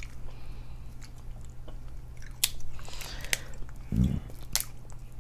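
Close-miked mukbang eating: biting and chewing seafood boil, with scattered sharp clicks and cracks and a brief low sound about four seconds in.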